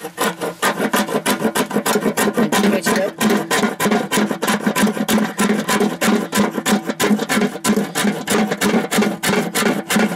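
Rapid back-and-forth scraping on a stick of fatwood, several strokes a second, rasping off fine resin-rich dust as tinder for starting a fire.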